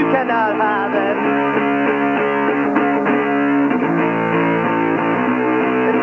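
Electric guitar strumming punk rock chords in a live recording, the chords changing every second or so. The sound is dull and lacks highs, as on an old tape.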